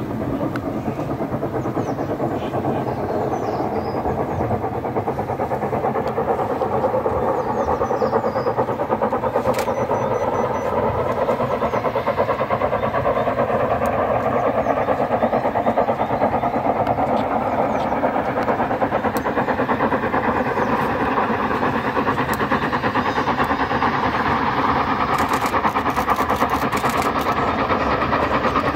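Steam locomotive working up the line towards the station, its exhaust and running noise growing gradually louder as it approaches.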